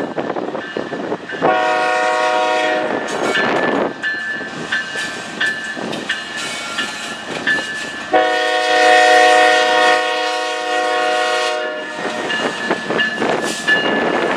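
Air horn of the lead locomotive, a GE ES44AC diesel, sounding for a grade crossing: one blast of about a second and a half, then a few seconds later a long blast of nearly four seconds, the loudest sound. Under it runs the rumble of the approaching train.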